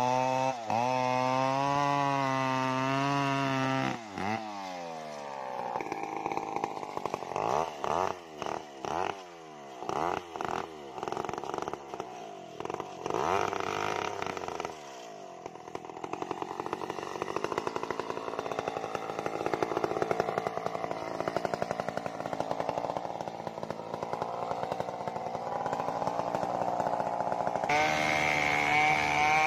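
Stihl two-stroke chainsaw cutting sengon wood. It runs at steady high revs for about four seconds, drops in pitch, then revs up and down repeatedly before settling into a long steady cut, and runs at steady high revs again near the end.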